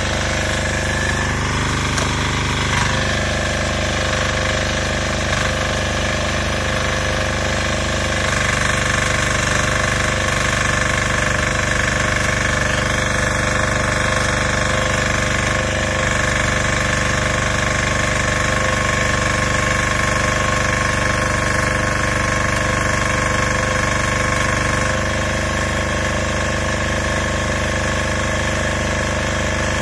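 Diesel welder-generator engine running steadily, a little louder from about eight seconds in until about twenty-five seconds in, while it powers stick welding.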